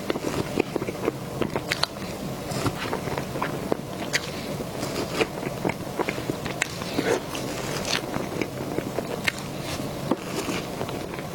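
Close-miked eating sounds: a person chewing, with many irregular wet mouth clicks and smacks.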